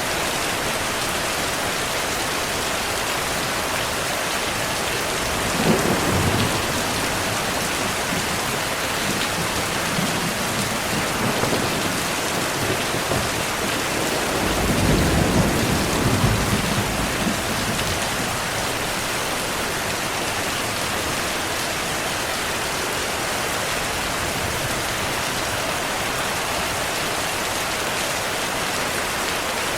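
Steady heavy rain falling, with thunder: a short sudden crack about six seconds in, then a longer rolling rumble of about three seconds around the middle.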